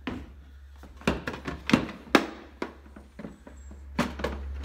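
Sharp knocks and clatter of a Senco 15-gauge nailer being shifted and pushed down into a plastic Milwaukee PackOut ammo can. There are about half a dozen hard knocks roughly half a second apart, over a steady low hum.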